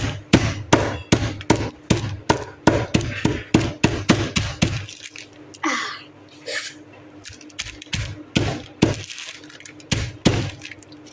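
A hand pounding a bag of Cheetos on a hard surface to crush the chips: rapid thuds about three a second, slowing after about five seconds to scattered, separate blows.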